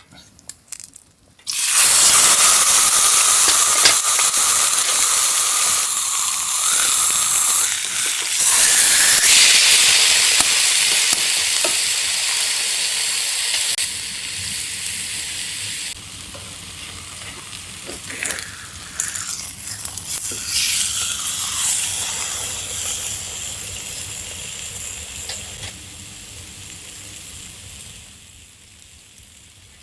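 Food frying in a hot pan: a loud sizzle starts suddenly about a second and a half in and surges again about eight seconds in. It then slowly dies down.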